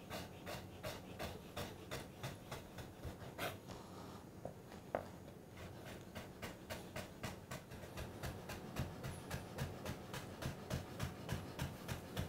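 Chef's knife chopping lime peel into fine julienne on a plastic chopping board: quick, even taps of the blade on the board, about four to five a second, thinning out briefly about four seconds in.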